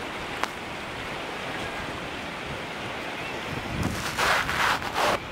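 Steady wind hiss on the microphone over calm water, with a few louder rushes of noise about four seconds in.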